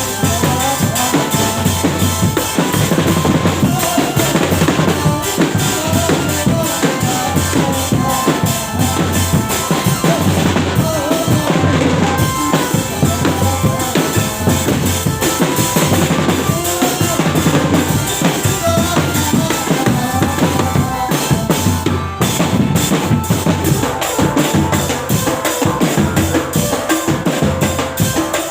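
Loud music with a steady drum beat and a melody over it.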